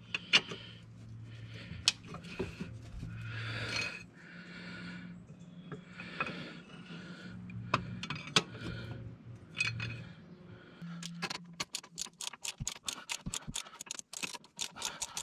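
Metal scraping and clinking as bolts and a wrench are handled against the steel mount plate, over a low steady hum. In the last few seconds a ratchet wrench clicks rapidly as it runs a nut onto a stabilizer mount bolt.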